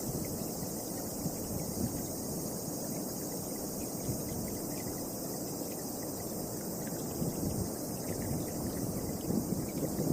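Gusty wind rushing and buffeting the microphone, over a steady high-pitched insect chorus.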